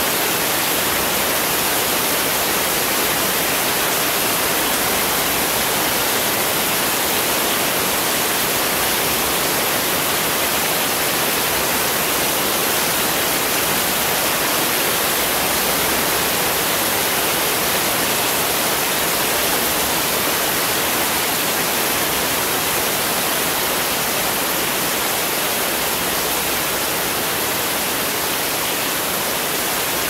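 Heavy rain pouring steadily onto paved ground: a dense, even hiss with no breaks.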